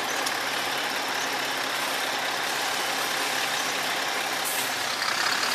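Heavy truck engine running steadily, with a low hum under a dense, even hiss of road and wind noise.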